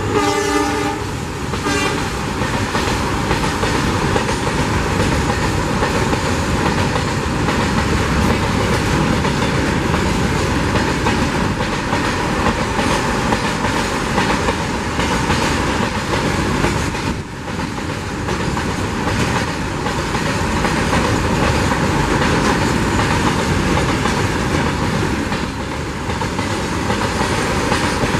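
Freight train wagons rolling past close by at speed, a steady wheel-on-rail rumble and clatter, with a brief dip in loudness about seventeen seconds in. In the first couple of seconds the trailing WDG4 diesel locomotive passes, its horn tailing off.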